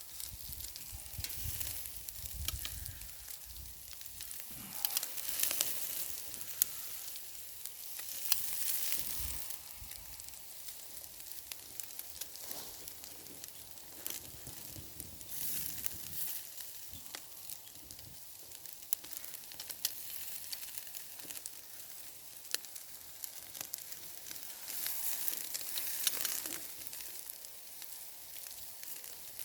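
Chops and vegetables sizzling on a grill over campfire coals. The sizzle is a steady hiss that swells several times, dotted with sharp crackles.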